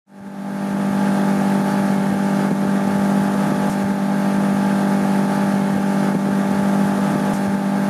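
A steady, unbroken low droning hum, fading in at the start and holding one pitch throughout.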